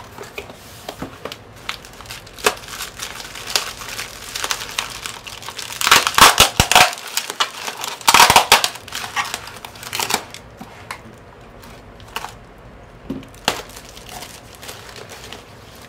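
Bubble wrap and plastic packaging crinkling and rustling as it is handled and pulled out of a cardboard box, with scattered crackles and two loud spells of crinkling about six and eight seconds in.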